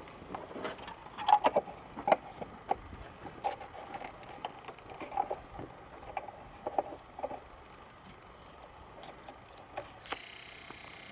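Plastic and metal clicking and knocking as the Opel Astra H ignition module is pushed back down onto the valve cover and spark plug wells by hand. A run of sharp clicks comes in the first seven seconds, then it goes quieter.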